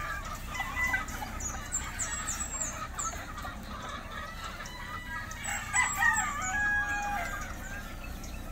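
A flock of gamefowl: roosters crowing and hens clucking, with a longer held crow about six seconds in. Short, high, falling chirps sound above them in the first few seconds.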